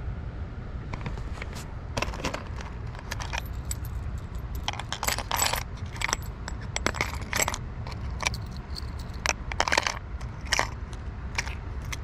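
Metal inline spinner lures and hooks clinking and rattling against each other and the hard plastic tackle-box compartments as a hand sorts through them: a string of irregular sharp clicks and jingles over a low steady rumble.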